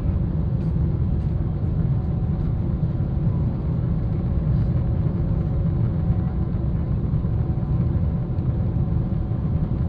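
Steady deep rumble of cabin noise inside a Boeing 777-300ER in flight, from its engines and the airflow over the fuselage.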